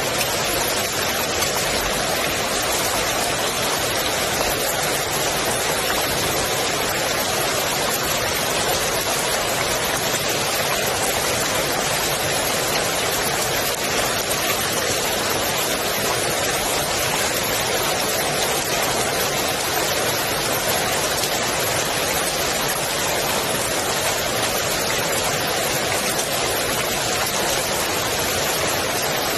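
Steady rain falling on the water of a swimming pool, a dense even hiss with no single drops standing out.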